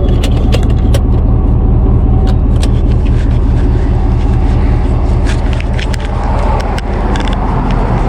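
Tow truck engine running steadily with road noise while driving, with scattered light clicks and rattles throughout.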